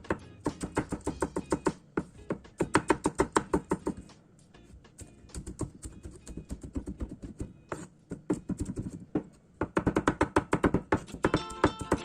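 Background music of quick plucked-string notes in a fast, even rhythm, dropping back briefly twice.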